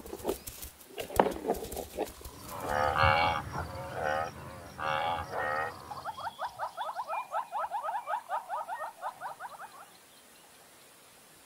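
Animal calls: a few sharp clicks, then three or four long pitched calls, then a fast run of short rising notes, about seven a second, that stops about ten seconds in.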